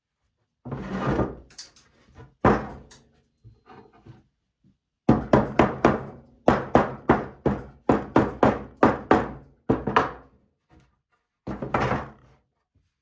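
Hammer knocking the wooden frame-and-panel pieces together to seat the tongues in their grooves. A few single knocks come first, then a quick, even run of about three blows a second for some five seconds, and one last knock near the end.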